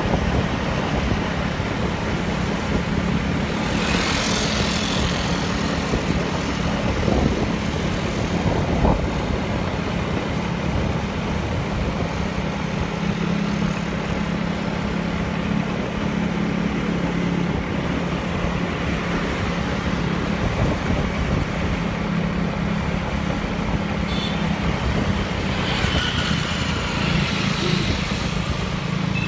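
A vehicle's engine humming steadily while driving, heard from on board along with wind and road noise. Two brief louder rushes come about four seconds in and again near the end.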